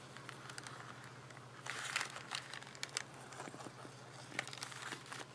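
Faint rustling and crinkling of a paper coffee filter being handled on a table, with a few small clicks and a slightly louder rustle about two seconds in.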